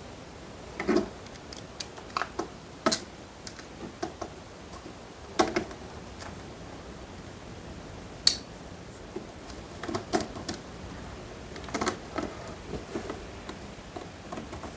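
A hobby servo and small parts being handled and fitted into a mount on an aluminium robot-arm plate: irregular light clicks and knocks, with one sharper click about eight seconds in.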